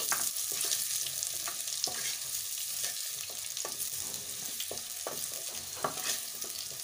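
Fried potato pieces sizzling in hot oil in a nonstick kadai, with scattered knocks and scrapes of a wooden spatula as the pieces are lifted out of the pan.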